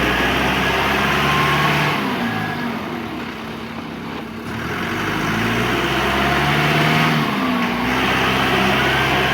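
John Deere 310L EP backhoe loader's four-cylinder diesel engine running, its pitch rising and falling as it is revved. A reversing alarm beeps twice in the first few seconds, and a rising whine comes in near the end.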